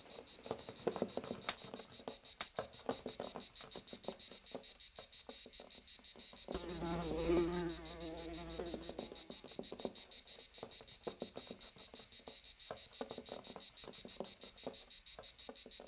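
Faint outdoor insect chorus: a steady, fast-pulsed high trill of singing insects, with scattered soft clicks. About six and a half seconds in, a flying insect buzzes past for about two seconds, its wavering hum rising and fading.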